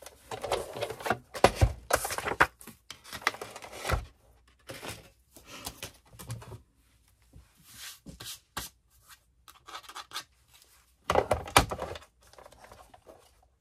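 Cardstock and die-cutting plates being handled: irregular paper rustling and scraping, with dull thumps about a second and a half in and again at four seconds, and a louder bout of rustling near the end.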